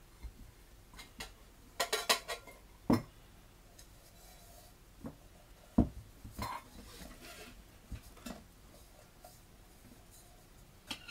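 Lightweight metal camping cookware, a pot and bowl, clinking and knocking as the nested pieces are pulled apart and set down, with a quick run of clinks about two seconds in and a heavier knock about six seconds in. Smaller clicks follow as the pot's folding wire handle is swung out.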